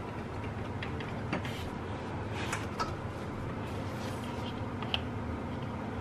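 A few faint, scattered metallic clicks and taps from hand work on an alternator's mounting bolts, over steady low background noise.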